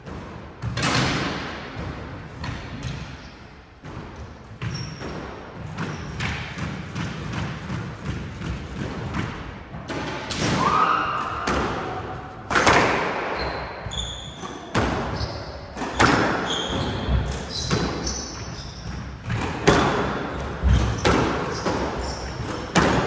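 Squash ball knocked by racquets and smacking off the walls and hardwood floor, with sneakers squeaking on the court. The knocks are scattered at first and become a rally from about halfway through.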